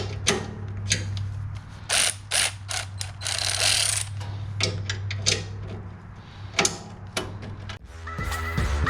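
Ratchet wrench working on the bolts of a riding mower's belt guard: irregular clicks and a longer ratcheting scrape about three to four seconds in, over a steady low hum. Music comes in near the end.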